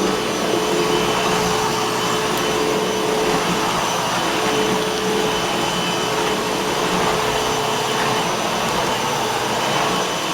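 Eureka Boss Smartvac 4870 upright vacuum cleaner running steadily on a bare floor, with its height set to bare floor: a loud, even motor rush with a steady whine that fades in and out.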